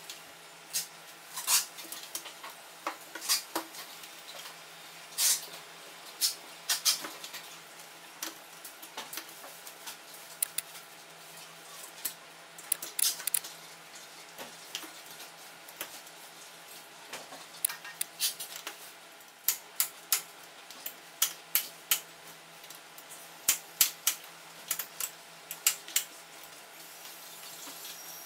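Aluminium tubes of a toilet safety frame knocking and clinking against each other and the table as the frame is assembled by hand, with clips clicking onto the crossbars: many sharp, irregular clacks.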